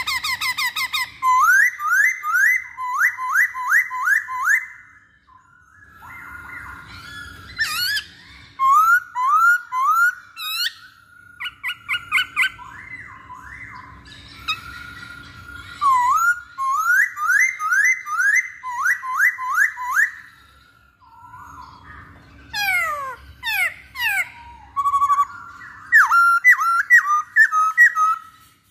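Black-throated laughingthrush (poksay Hongkong) singing loudly: quick runs of rising whistled notes repeated in phrases, with short pauses between them.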